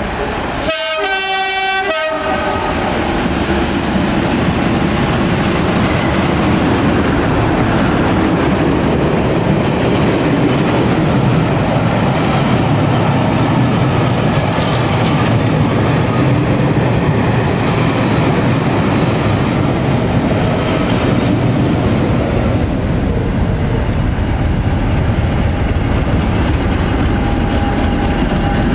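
Class 37 diesel locomotive sounding its two-tone horn about a second in, a short high note then a lower one. A locomotive-hauled train of coaches then passes at speed in a steady, loud rumble, with the Class 50 diesel locomotive on the rear coming by near the end.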